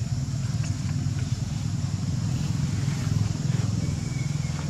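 An engine running steadily, a low, even hum with no change in speed.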